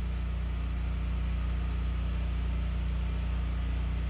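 Steady low mechanical hum that stays unchanged throughout, with a faint fast flutter in it.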